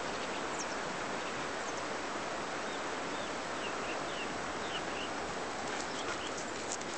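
A steady rushing outdoor noise, with a few short bird chirps in the middle and a handful of light clicks near the end.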